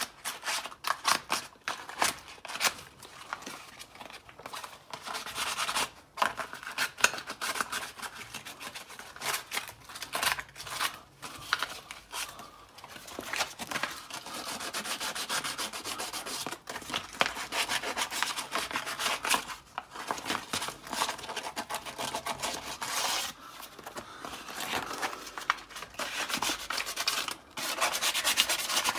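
Sandpaper rubbed by hand over a Porsche 996 brake caliper in rapid back-and-forth strokes, with a few brief pauses. The sanding strips the old peeling lacquer and faded paint and smooths the caliper ready for repainting.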